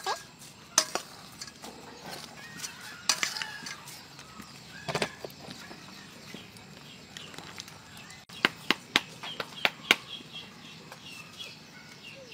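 Sharp clinks of a metal ladle against a metal cooking pot, with a quick run of them about eight to ten seconds in. Chickens cluck in the background.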